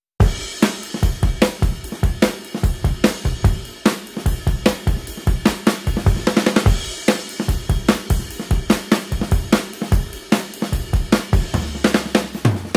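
Background music with a steady drum-kit beat of kick, snare and hi-hat, and a held bass note coming in near the end.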